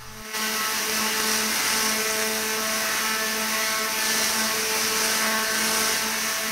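Tesla coil sound effect: a steady electric buzz with a dense crackling hiss, starting about a third of a second in.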